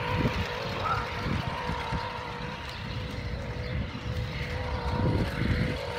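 Toy RC car's small electric motor whining at a steady pitch over a low, uneven rumble.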